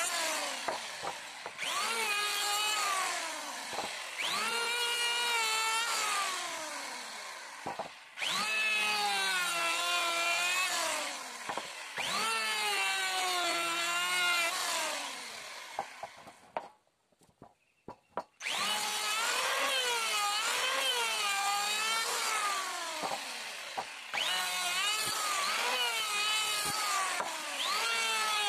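Electric hand planer shaving a wooden beam in repeated passes: a whining motor that sags in pitch as the blades bite into the wood and rises again between strokes. The planer stops for about two seconds a little past the middle, then starts again.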